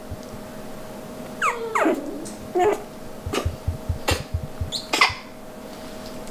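Red toy poodle puppy whimpering: two whines that fall steeply in pitch about one and a half seconds in, then a short yip and a few sharp, high squeaks.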